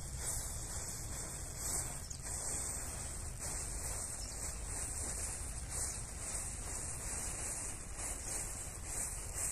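Row of standing matchsticks burning one after another in a chain, giving a steady hiss with faint crackling, over a low wind rumble on the microphone.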